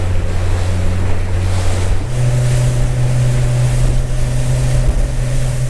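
Motorboat engine running under way, with wind and water rushing past. About two seconds in, the engine note steps up higher and stays there as the throttle is opened.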